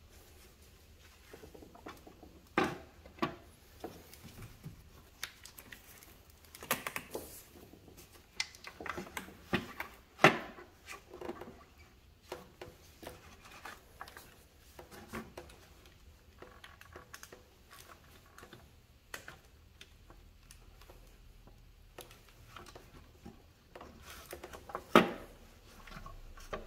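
Sporadic clicks and clunks of engine parts and hand tools being handled while the upper intake manifold of a Jeep 3.8L V6 is reassembled. A few louder knocks come about three seconds in, about ten seconds in and near the end.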